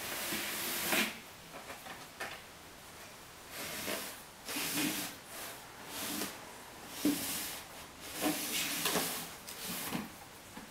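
Cardboard boxes scraping and sliding across a tile floor as ferrets push and move about inside them, in a series of short scrapes of a second or less, with quiet gaps between.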